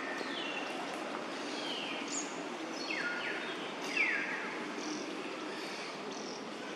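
A series of short, high animal calls, each falling quickly in pitch, coming about once a second, the loudest about four seconds in, over steady outdoor background noise.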